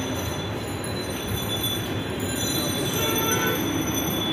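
Steady low rumble of background noise: road traffic mixed with room ambience.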